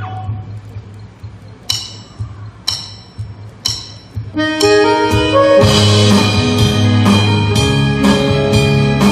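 Live band music: after the keyboard intro stops, three sharp clicks about a second apart, then drums, guitars and keyboard come in together at a steady beat about four and a half seconds in.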